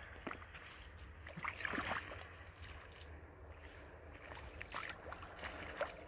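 Rubber boots wading through shallow standing water, with irregular sloshing and splashing steps, the loudest about one and a half to two seconds in.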